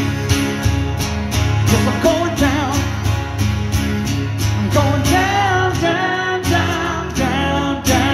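Acoustic guitar strummed steadily, with a man singing over it in short phrases, about two seconds in and again from about five seconds.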